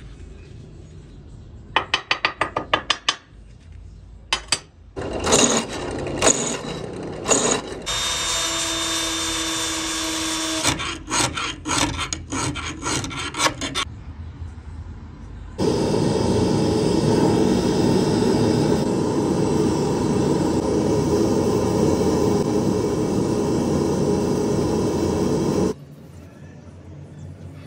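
Metalworking tools on a steel knife blank. First come bursts of quick rubbing or scraping strokes, then a power tool runs with a steady whine for a few seconds, followed by more rapid strokes. After that a steady power tool noise goes on for about ten seconds and cuts off suddenly near the end.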